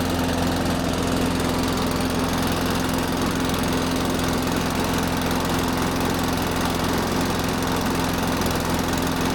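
Benchmark lawn mower's small engine running steadily on its own. The earlier no-start was stale fuel left in the undrained carburetor.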